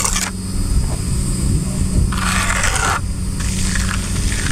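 An engine running steadily, with three bursts of scraping noise, about a second each, at the start, around two seconds in and near the end.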